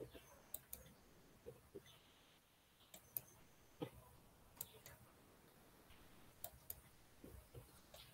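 Faint computer mouse clicks: a dozen or so sharp single ticks at uneven intervals, over quiet room tone.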